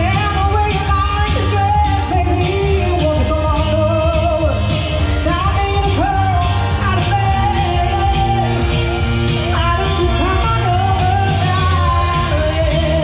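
A woman singing live into a handheld microphone, amplified over recorded backing music with a steady beat.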